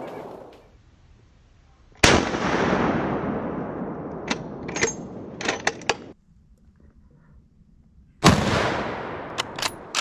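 Two deer-rifle shots, about six seconds apart, each a sudden bang followed by a long fading echo, with several sharp clicks between them.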